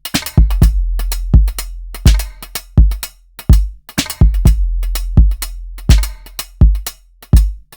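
A drum-machine beat from Maschine's drum synths plays on a steady loop. Deep kick hits drop in pitch and ring into a sustained sub-bass, with snare and hi-hat hits between them.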